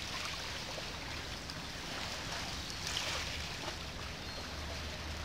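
Steady ambience of calm sea water lapping against shoreline rocks, a soft continuous wash with a slightly louder swell about three seconds in.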